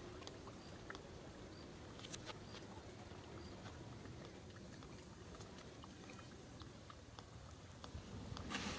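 Faint outdoor background with scattered light clicks and ticks, and a short rustling burst near the end.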